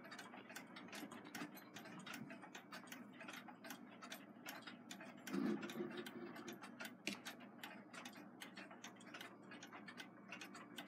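Several nickel-plated wind-up alarm clocks ticking faintly together, their ticks overlapping out of step. About five seconds in, a short rubbing sound comes from one of the clock cases as it is handled, and a single sharper click follows about two seconds later.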